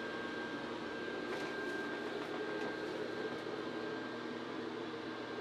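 Blower fan of a Home Accents Holiday airblown inflatable running steadily: a constant drone with a thin high whine held at one pitch.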